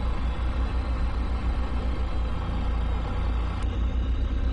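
Towboat engines running steadily under power while towing, a continuous low rumble heard from the helm. A single faint click about three and a half seconds in.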